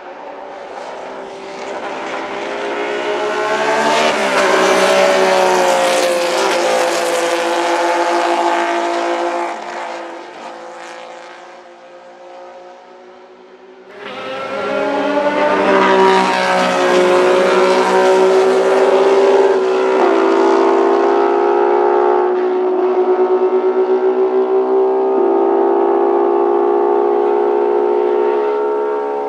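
1961 Ferrari 156 F1 "Sharknose" race cars' 1.5-litre V6 engines at high revs. First one passes at speed, swelling to full volume and then fading. After a sudden cut, engines run hard again at full volume for the rest of the stretch.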